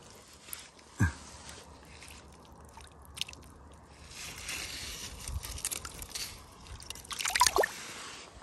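Water splashing and sloshing as a small white-spotted char is handled and let go at the water's edge, with a sharp splash about a second in and a louder, longer splash near the end.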